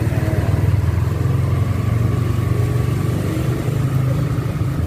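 Motorcycle engine running steadily at low speed, heard from on the bike as it rolls slowly along.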